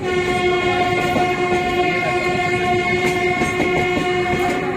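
Train horn sounding one long, steady blast at a single pitch, over the rumble and clatter of railway coaches moving past.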